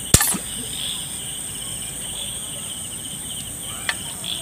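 A speargun fires with one sharp snap right at the start, over steady chirping of crickets and other night insects; a small click follows near the end.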